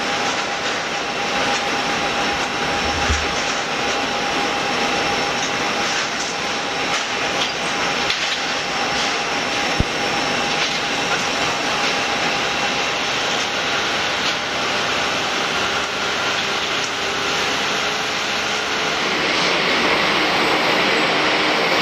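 Saab 2000's two Allison AE 2100 turboprop engines and propellers running with a steady rushing noise and a held whine as the airliner touches down and rolls out along the runway, with a low thump about three seconds in. The noise grows louder near the end.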